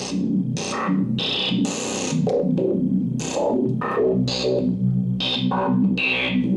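Synthesizer music: a run of short notes and chords over a held low bass.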